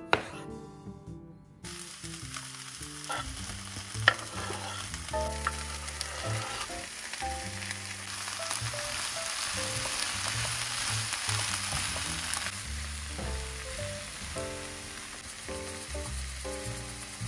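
A knife cuts once on a wooden board. About a second and a half in, cherry tomatoes, bell pepper and onion start sizzling in oil in a frying pan, with a couple of sharp knocks soon after. The sizzle holds steady, loudest midway.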